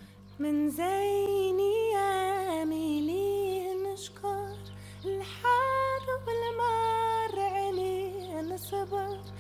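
Background music: a woman's voice sings a slow melody of long, bending notes over a steady low drone. The voice comes in about half a second in.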